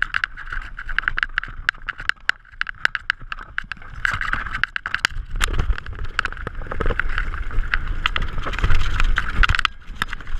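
Downhill mountain bike rattling down a rough dirt singletrack: a rapid clatter of clicks and knocks from the chain, frame and tyres over the ground. A low wind rumble on the microphone grows louder in the second half.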